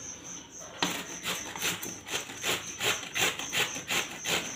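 White radish (mooli) being grated on a handheld metal grater: rhythmic rasping strokes, about two and a half a second, starting about a second in.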